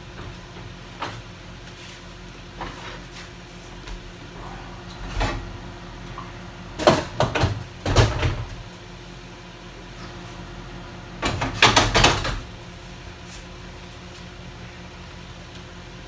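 Metal clunks and rattles from a Beaumont Metal Works 2x72 belt grinder as its small-wheel attachment is taken off and the 10-inch contact wheel is fitted. There are scattered knocks, then louder clusters about halfway through and again about three-quarters through, over a steady low hum.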